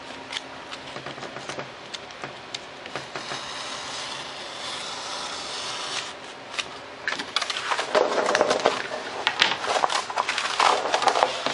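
Hobby knife blade drawn through paper-faced foam board, a low scratchy hiss with small ticks. From about seven seconds in, louder irregular crackling and rustling as the cut foam board pieces are handled and pulled apart.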